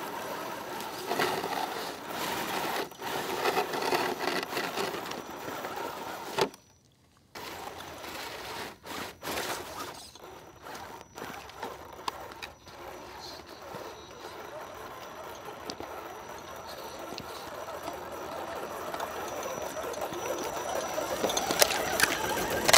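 Electric RC crawler's dual brushed motors and gear drivetrain whining as the truck drives over ice and through shallow water. The sound drops out briefly about seven seconds in.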